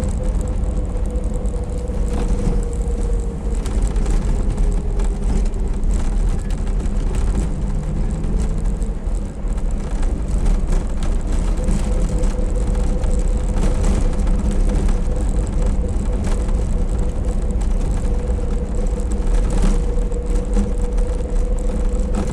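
Cabin noise of an IZh-2717 van on the move: engine and road rumble with a steady whine that drifts slightly in pitch, and frequent small rattles and creaks. The driver suspects a brake pad or the cargo box of making the creaks, and cannot place the rattle or the whistle from underneath.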